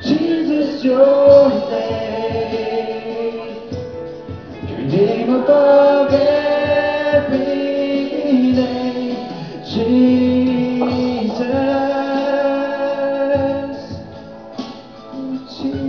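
Worship singers, led by a female voice, singing a slow worship song over a band, with long held notes.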